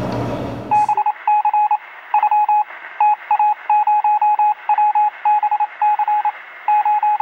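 Morse-code-style beeping sound effect: a single mid-pitched tone keyed on and off in short and longer beeps, in irregular groups, starting about a second in.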